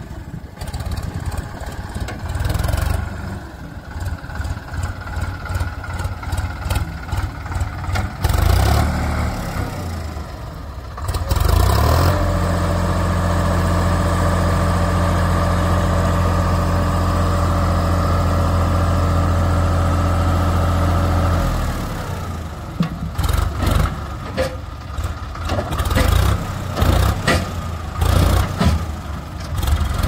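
Sonalika tractor's diesel engine running unevenly at first, then revving up about twelve seconds in and holding steady, raised revs for about ten seconds while its hydraulic lift tips the trolley bed to dump the soil, before dropping back to an uneven idle.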